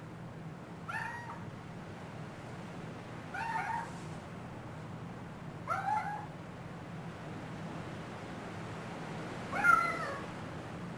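Domestic cat meowing four times, short calls a few seconds apart, the last one the loudest.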